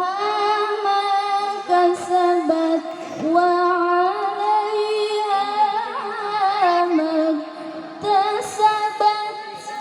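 A single voice chanting Quran recitation in a slow melodic style, holding long drawn-out notes with wavering ornaments and a few short breaks.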